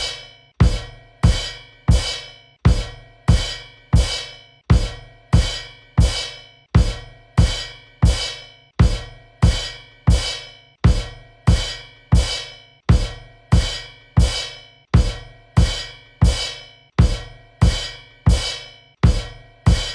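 Cymbal kicks: a crash cymbal and bass drum struck together over and over, about one and a half hits a second, each hit ringing out and fading before the next.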